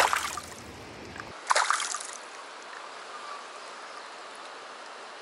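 Two sharp splashes about a second and a half apart as a hand lets a cherry salmon go in shallow stream water, over the steady rush of the stream.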